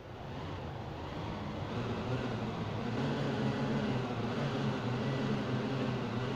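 Audi A4 Allroad 2.0 TFSI Quattro's turbocharged four-cylinder engine under throttle with its wheels turning on slip-test rollers, getting louder over the first three seconds and then holding a steady low drone.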